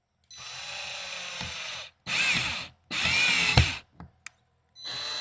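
Power drill driving a screw into a wooden door in four trigger bursts. The first burst is long and steady. The next two are shorter and louder, with the motor speed rising and falling as the screw bites, and a sharp knock comes at the end of the third. A fourth burst starts near the end.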